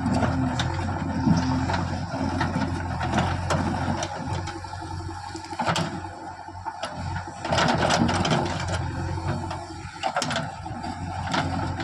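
Diesel engine of a backhoe loader running steadily under work, with scattered clanks and knocks from the bucket and soil.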